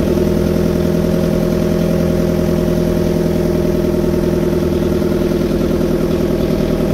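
A small boat's motor running steadily at an even pitch, with a low, constant drone.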